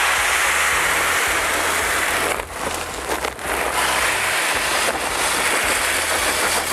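Untreated soybeans pouring from a 25 kg sack into the drum of a GEPETTO seed treater: a steady rushing hiss that thins out briefly about two and a half to three and a half seconds in.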